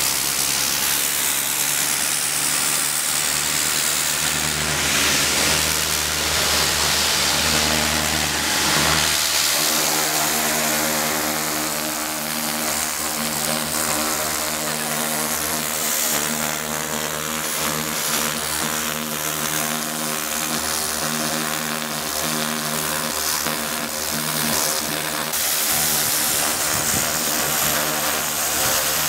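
High-pressure washer spraying: the water jet hisses steadily as it hits a tree root to strip its bark, over the washer's motor hum. About nine seconds in, the hum takes on a clear, steady pitch and stays there.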